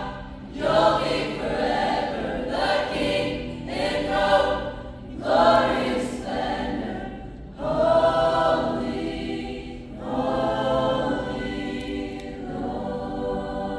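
Choir singing a worship song in long held phrases, growing softer near the end.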